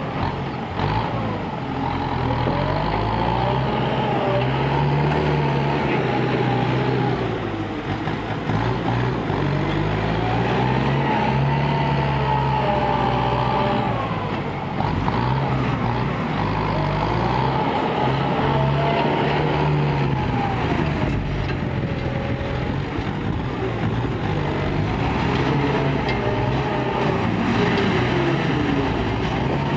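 Diesel engine of a ten-wheel dump truck running and revving up and down several times as its raised tipper body is lowered after dumping soil.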